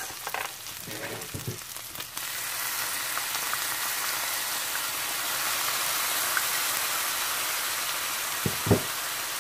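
Pork strips frying in oil in a nonstick pan. About two seconds in, the sizzle jumps up suddenly and holds steady as soy sauce hits the hot pan. Two short knocks near the end.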